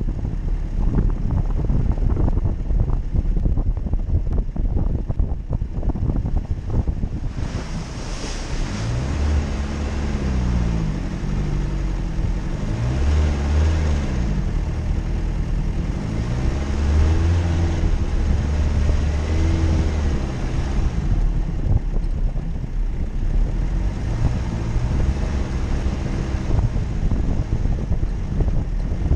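Jeep Cherokee's engine revving up and down again and again, as off-roading under load, with wind buffeting the microphone. The first several seconds are mostly rough knocking and buffeting noise before the engine's rising and falling revs come through.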